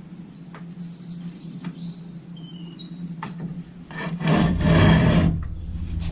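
A loud rasping scrape lasting about a second, starting about four seconds in, with quieter rasping near the end, over a low steady hum; faint high chirps come before it.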